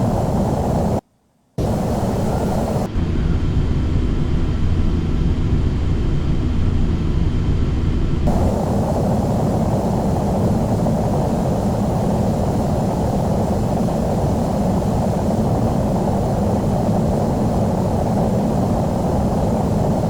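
Steady jet engine and airflow noise inside the cabin of a Boeing 737-800, heavy in the low end. It is broken by a brief dead silence about a second in and a duller stretch from about 3 to 8 seconds, where the recording is cut.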